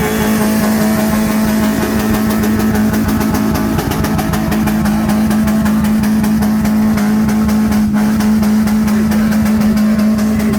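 Off-road rally vehicle's engine held at high, steady revs.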